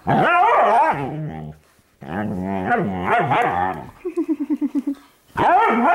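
Dog vocalizing in play: two long, wavering, drawn-out whine-howls, then a quick rattling growl about four seconds in.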